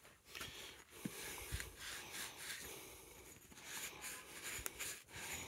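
A cloth rubbing and wiping over a motorcycle fork lower leg, a soft scratchy scrubbing with a few light knocks of the tube being handled.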